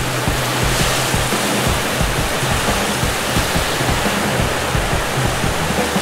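Whitecapped waves breaking on a sandy lakeshore in a strong north wind, a steady rushing of surf and wind. Background music holding low notes plays over it.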